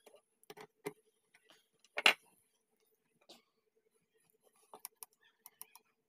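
Small metal clicks and taps of a carburetor's accelerator-pump plunger lever and linkage being worked loose by hand, with one louder knock about two seconds in and a quick run of light clicks near the end.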